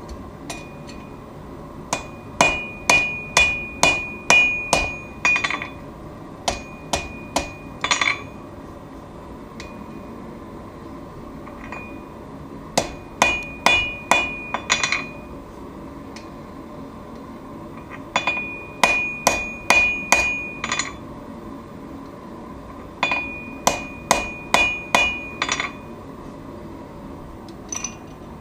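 Hand hammer striking hot steel on an anvil while forging a knife blade. The blows come about three a second in five runs with pauses of a few seconds between, and each strike carries a high, ringing anvil tone. A steady noise runs underneath.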